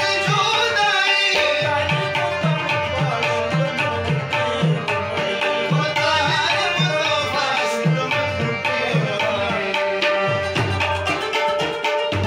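A ghazal played on tabla and harmonium: the tabla keeps up a steady rhythmic pattern of low and ringing strokes over a held harmonium chord, and a male voice sings the melody.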